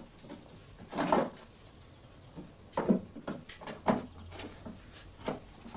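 Several short knocks and clatters, about six or seven in a few seconds, the loudest near the middle: objects being handled and set down in a small room.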